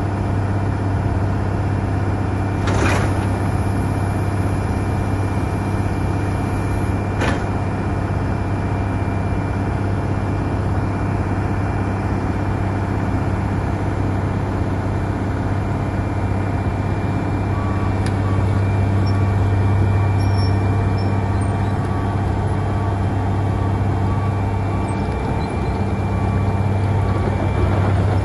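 Wirtgen W220 cold planer's diesel engine running steadily with a deep drone while the tracked machine turns and drives off. Two short sharp noises come through about three and seven seconds in.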